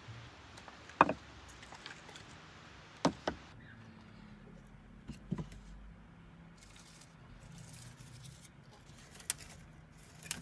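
A few sharp knocks and clicks over a quiet background hiss. The loudest comes about a second in and rings briefly, two more come close together about three seconds in, and fainter ones follow.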